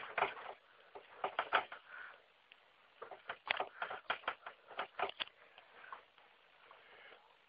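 A beagle at play: a run of irregular light taps and clicks, a few about a second in and a dense patter from about three to five seconds in.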